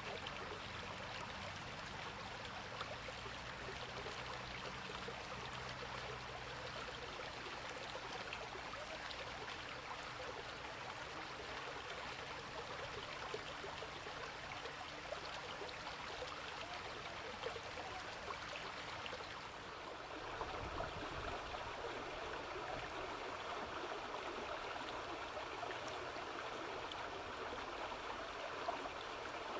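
Water flowing in a stream, a steady even noise. About twenty seconds in the sound changes to a slightly louder, fuller flow with less hiss at the top.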